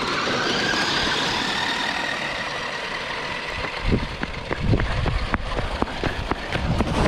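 Electric motors of remote-control trucks running at speed, a steady high whine that slowly fades. From about four seconds in, low thumps and rumble come in over it.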